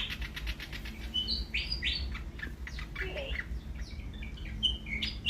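Willie wagtail singing: a quick run of clicks, then a string of short, varied chirps and brief whistled notes, over a steady low rumble.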